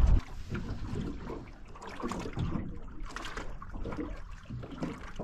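Small waves lapping and slapping against the hull of a small fishing boat, with a few light knocks.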